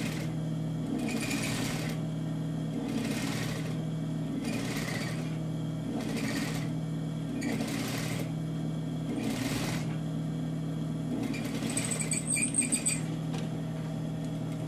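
Sewing machine stitching a hem in fabric, running steadily with a regular swell about every second and a half. Near the end comes a brief burst of sharper, higher clicks.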